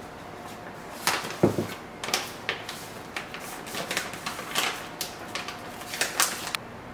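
Plastic pancake-mix pouch crinkling and rustling in the hands, in quick irregular bursts, with one dull knock about a second and a half in.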